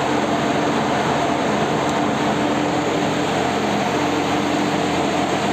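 Steady mechanical drone of a ship's engines and machinery on deck: an even hiss with a low, constant hum beneath it.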